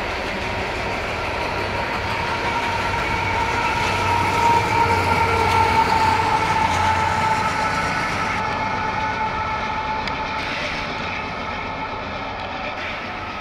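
Loaded coal hopper cars of a freight train rolling past on steel rails, with a steady high squeal that grows louder about halfway through and then fades.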